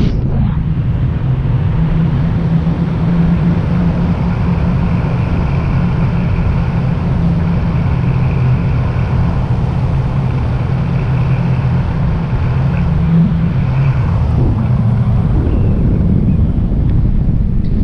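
Airflow buffeting the microphone of a pole-mounted action camera during tandem paraglider flight: a loud, steady rumbling wind noise, with a low steady hum through the middle of it.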